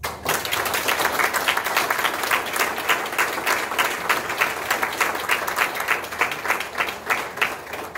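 Audience applauding: many hands clapping, breaking out suddenly and holding steady.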